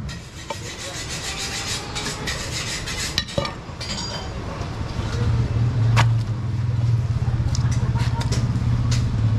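A heavy cleaver strikes a wooden chopping block a few times: once at the start, again a little past three seconds, and once about six seconds in, with meat being scraped and handled in between. From about halfway a steady low motor hum comes in and becomes the loudest sound.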